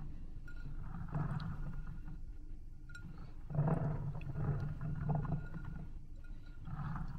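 Hands pressing into and stirring a glass bowl full of water-swollen gel beads (Orbeez): wet squishing and shifting of the beads, coming in several surges, the fullest about three and a half seconds in.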